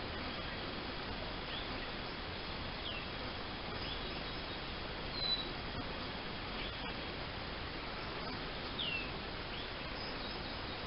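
Faint, short high bird calls, each sliding down in pitch, repeating every second or two over a steady background hiss.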